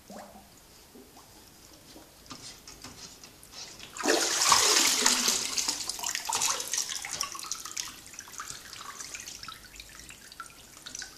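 Water splashing and streaming off a steel wheel rim as it is lifted out of a water-transfer-printing dip tank. It starts suddenly about four seconds in, after faint small sloshing, and tapers off over the next few seconds.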